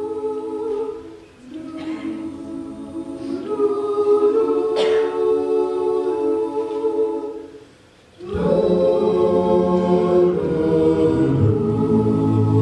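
Male a cappella group singing held close-harmony chords. The sound dips briefly near the start, breaks off for a moment about eight seconds in, then comes back fuller, with a low bass voice underneath.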